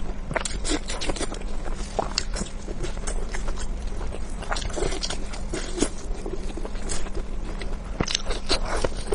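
Close-miked chewing and biting of food, with many sharp crunching crackles coming irregularly, several a second.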